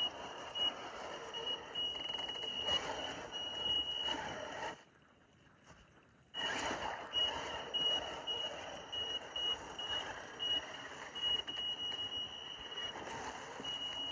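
Traxxas TRX4 Sport RC crawler's Castle brushless motor and ESC giving a high-pitched whine that cuts in and out in short pulses as the throttle is worked, over a hiss of water and tyres on rock. The sound drops away for about a second and a half some five seconds in, then resumes.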